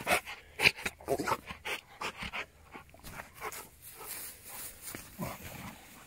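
Rottweiler panting in quick, rapid breaths, loudest in the first couple of seconds and fading toward the end.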